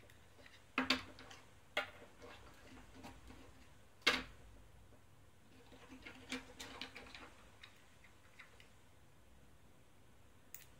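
Sharp clicks and light taps of small plastic mold pieces being handled and fitted together by hand, a few separate clicks with the loudest about four seconds in and a cluster of lighter clicks a couple of seconds later.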